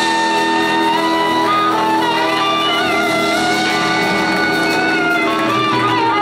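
Live rock band playing loudly: electric guitars and harmonica with long held and bending notes.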